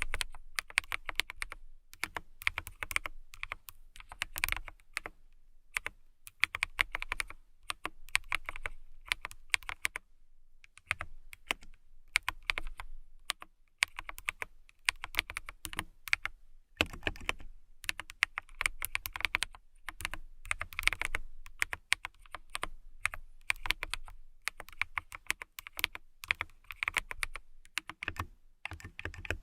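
Fingernails tapping in quick runs of light clicks, with short pauses between runs.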